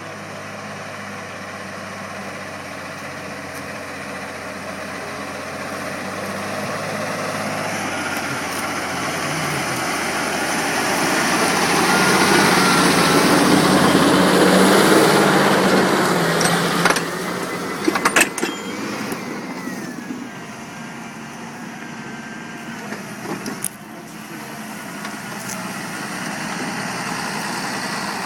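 A Claas tractor's diesel engine working under load while pulling a plough. It grows louder as the tractor comes closer, is loudest about halfway through, then fades as it moves away. A few sharp knocks or clicks come about two-thirds of the way through.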